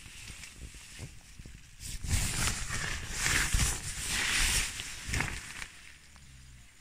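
Rustling and scraping of tent fabric as someone pushes out through the door flap, in several loud bursts over a couple of seconds with a few soft knocks, then dropping to a low hiss.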